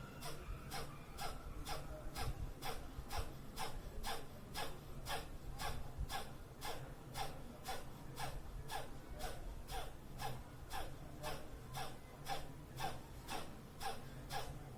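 Rapid, forceful rhythmic breathing as in a yogic pranayama exercise: short sharp breaths evenly repeated, about three a second, without a break.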